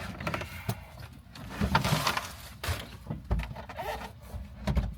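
A metal harness bar being handled and set in place inside a car: rustling and scraping with several irregular knocks, the loudest about two seconds in and again near the end.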